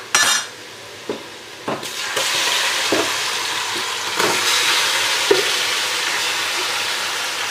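Curd-marinated chicken going into hot oil and fried onions in a cooking pot on a high gas flame: two sharp clatters at the start and a few utensil knocks, then about two seconds in a steady sizzle begins and keeps on.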